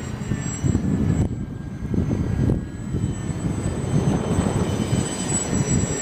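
Extra 300 aerobatic airplane's six-cylinder piston engine and propeller running steadily, with a rough, fluctuating low rush and a faint high whine above it.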